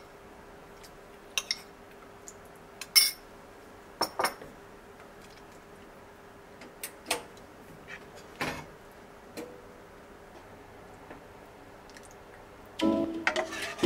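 Ladle clinking and scraping against a saucepan while stirring thickened soup, then ladling it into a ceramic bowl: scattered taps and knocks over a faint steady hum. Near the end comes a louder run of ringing tones.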